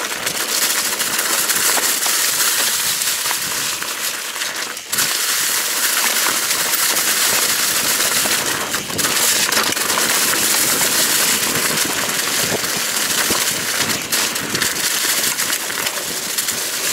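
Mountain bike tyres rolling fast through a thick carpet of dry autumn leaves, a continuous crunching crackle of many small clicks, dipping briefly twice.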